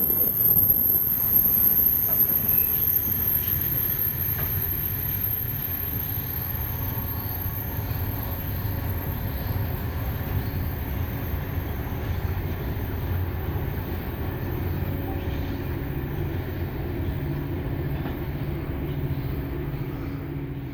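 Freight train rolling past on the main line, a steady rumble of wagon wheels on the rails that slowly eases off in level.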